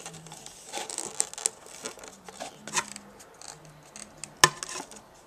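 Handling noise: a scattered run of small clicks and rustles, with one sharp click about four and a half seconds in.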